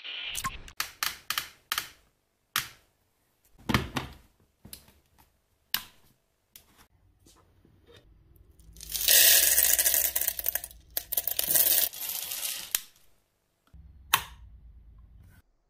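Whole coffee beans being poured into a coffee grinder's clear plastic hopper. Scattered rattles and clicks come first, then a loud rushing pour of beans lasting about four seconds with a brief break. A single click comes near the end.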